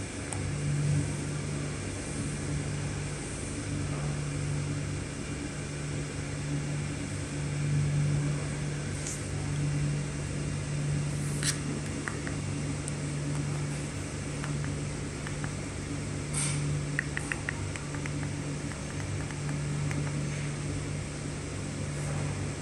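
Steady hum of a projector's cooling fan with a low drone underneath, broken a few times by short clicks and once by a quick run of small ticks, from the buttons of a handheld remote being pressed.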